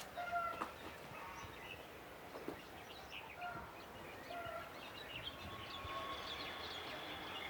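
Urban night ambience: a steady low rumble of distant city noise with scattered short chirps and calls over it, and a thin high steady whine through the second half.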